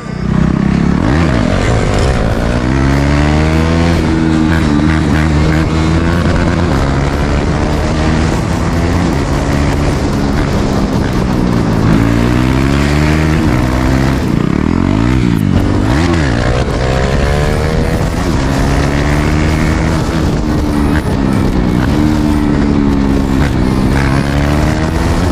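KTM Duke 390's single-cylinder engine through a loud exhaust, revving up hard again and again, its pitch climbing and then dropping at each gear change as the bike accelerates.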